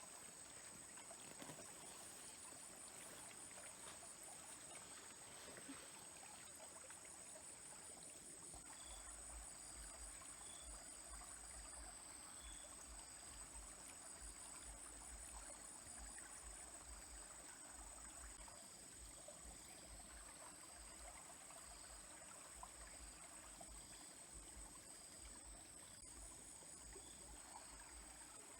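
Faint trickling of a small stream, with a steady high-pitched insect trill over it.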